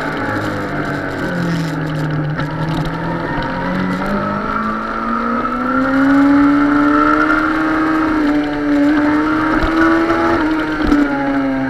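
Suzuki sport motorcycle's engine running under way. Its pitch climbs slowly over several seconds as it pulls, then drops near the end.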